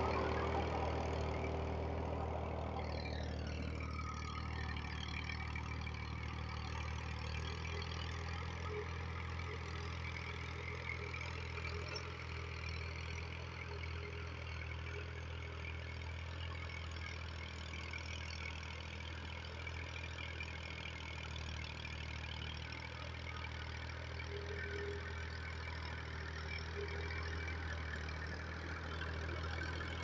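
A farm tractor's diesel engine runs with a steady low drone as it pulls a disc plough through dry soil.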